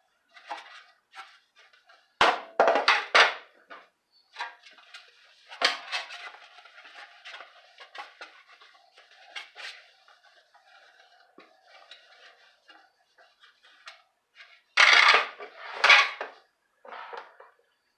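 Microfibre towel rubbing and buffing a carbon-fibre motorcycle fender, with light scraping and handling knocks. There is a louder knock and clatter about two seconds in, and two louder knocks near the end as the fender is moved about and set down on the wooden workbench.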